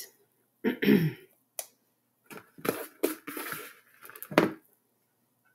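Hands working pieces of cheesy biscuit dough into a fluted baking dish and reaching into a plastic mixing bowl for more. The sound is scattered soft rustles and handling knocks, the loudest a knock about four and a half seconds in.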